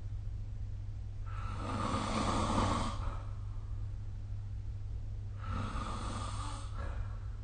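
A sleeping person snoring: two long, noisy breaths about four seconds apart, the first a little louder, over a steady low hum.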